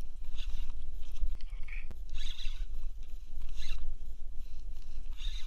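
Spinning reel (Penn Clash 2500) worked while a hooked fish is fought, giving several short raspy bursts over a steady low rumble.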